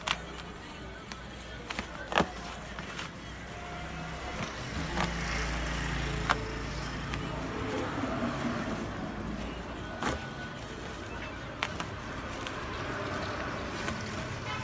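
A woven plastic sack being gathered and tied shut with string: crinkling rustle with scattered clicks and knocks. Under it runs a low hum that swells in the middle.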